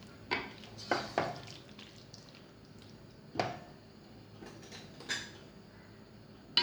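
Spoon scraping and knocking against a cooking pot while prawn masala is stirred, a few separate clinks and scrapes over several seconds.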